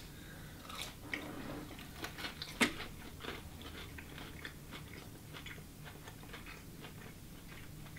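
Quiet mouth sounds of biting into and chewing breaded spicy chicken nuggets: scattered faint crunchy crackles and clicks, with one sharper click about two and a half seconds in.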